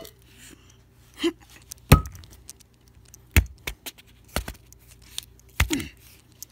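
A run of sharp, loud knocks about one to one and a half seconds apart: small Lego pieces being struck hard on the floor in an attempt to break them, with light clicks of plastic bits between the blows.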